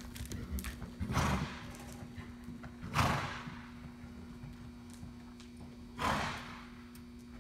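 A horse walking on soft arena dirt, its hoofbeats faint, with three loud breathy whooshes about a second in, three seconds in and six seconds in, over a steady low hum.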